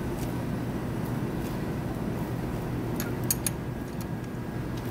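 Steady low machinery hum and hiss, with a few light clicks of handling about three seconds in.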